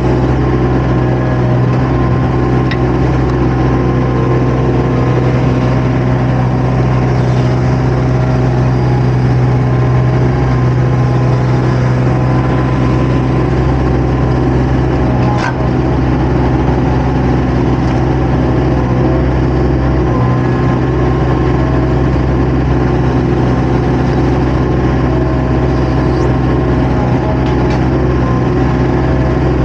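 Diesel engine of a compact construction machine running steadily at an even speed, heard close up from the operator's seat, with a single sharp knock about halfway through.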